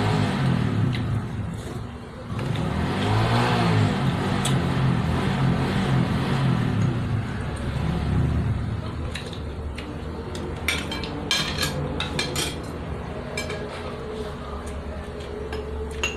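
Cutlery and dishes clinking during a meal, with a quick run of sharp clicks about two-thirds of the way through. Under it, a low pitched drone rises and falls through the first half.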